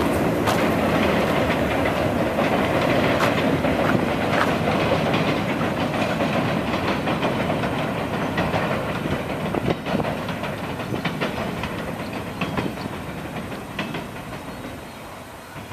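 CN freight train running across a steel truss railway bridge: a steady rumble with clattering wheels and occasional sharp clanks, slowly fading away.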